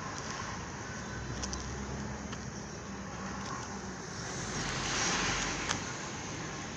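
Street noise with a motor vehicle going past, swelling to its loudest about five seconds in, then a single sharp click.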